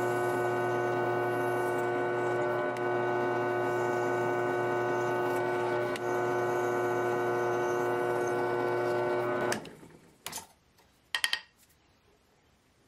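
Bench drill press motor running with a steady hum while the bit cuts holes through thin saw-blade steel; it stops about nine and a half seconds in. A few short light clicks follow as the drilled blade is handled.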